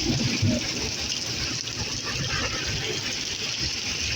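Heavy rain pouring down steadily in a thunderstorm, an even hiss with a low rumble underneath.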